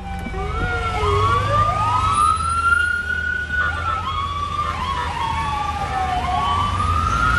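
Several emergency-vehicle sirens wail at once, each slowly rising and falling in pitch and overlapping the others, over the low rumble of road traffic.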